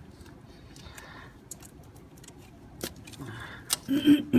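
Scattered light clicks and small metallic rattles of hand tools and parts being handled under a car's hood, with a man's voice starting near the end.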